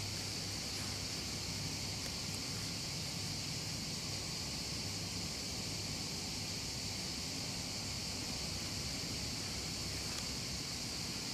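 Steady, even hiss, strongest high up, over a faint low rumble, with no distinct events.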